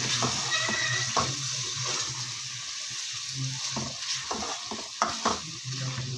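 Mashed boiled turnips and masala sizzling as they fry in oil in an aluminium pot, stirred and scraped with a metal spoon. The spoon knocks against the pot a few times, about a second in and twice near the end.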